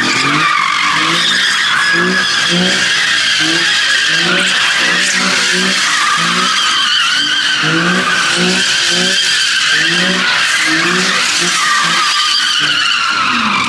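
Tires squealing continuously as a vehicle slides and spins on pavement, with a pulsing engine note underneath about twice a second. The squeal stops abruptly near the end.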